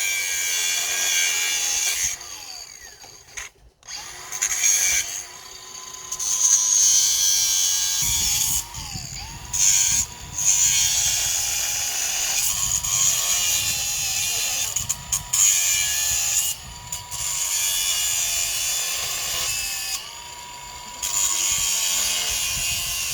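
Power drill running in long bursts with short stops between, as in driving screws or drilling while building the stalls.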